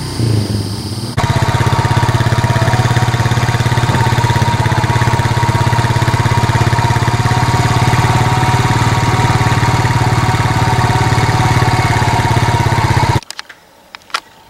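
ATV engine running at a steady speed, heard up close from aboard the moving quad. It comes in abruptly about a second in and cuts off about a second before the end.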